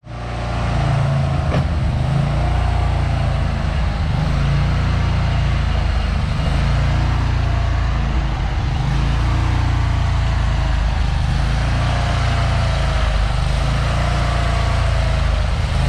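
A large engine running steadily and loudly, heavy at the low end, with a faint wavering whine above it.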